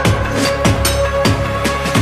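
Electronic background music with a steady drum beat, a deep bass line and held synth notes.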